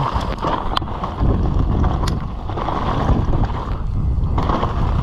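Mountain bike rolling fast down a dirt jump run-in: steady wind rush over the microphone and tyre noise on dirt, with a couple of sharp clicks from the bike.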